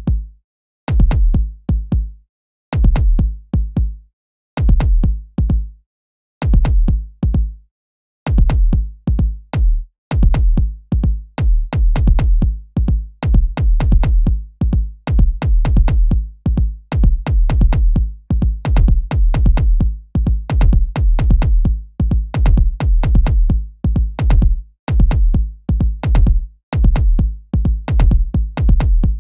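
A drum-machine beat programmed in FL Studio's step sequencer, with deep kick and bass-drum hits and sharp clicks above them, looping. For the first eight seconds or so it plays in chunks of about a second with short silences between, then runs on without a break.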